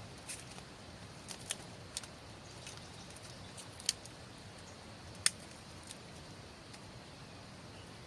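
Wood campfire crackling: a faint steady hiss with scattered sharp pops, the two loudest about four and five seconds in.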